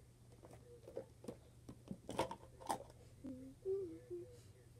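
A few sharp clicks and taps from handling small plastic slime containers, the two loudest a little past halfway. Near the end a girl starts humming a wavering tune.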